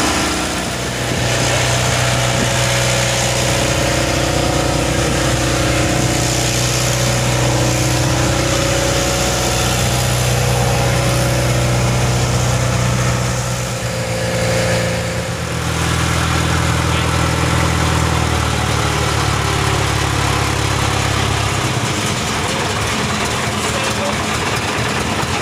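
A wooden fishing boat's engine running steadily under way. Its note changes about halfway through and again near the end.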